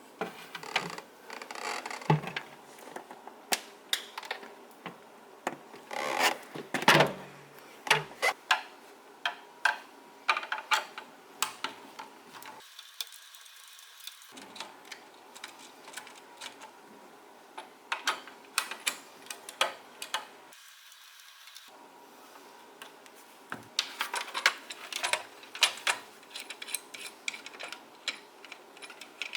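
Hands working on the fridge's interior fan housing: an irregular run of clicks, knocks and rubbing scrapes from parts being handled and fitted.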